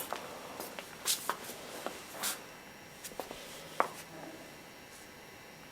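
Scattered light clicks and a few short rustles.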